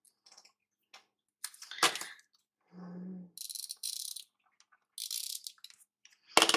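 Paper planner stickers and pages being handled on a desk: faint ticks and a rustle, then short high, hissy scrapes of stickers peeling from their backing sheet.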